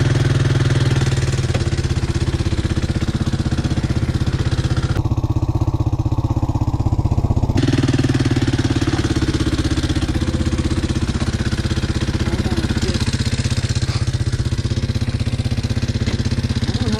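Single-cylinder-sized ATV engine running steadily at a low, even idle close to the microphone, with no revving. The sound goes duller for a couple of seconds about five seconds in, then returns.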